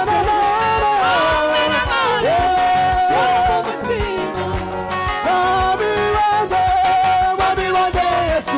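Live church worship music: a group of voices sings long held notes, with one lead singer on a microphone, over a steady drumbeat.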